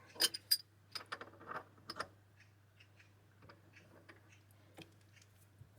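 Light metallic clicks and taps from handling tooling and a small brass part on a machine, several close together in the first two seconds and then a few scattered ones, over a faint steady hum.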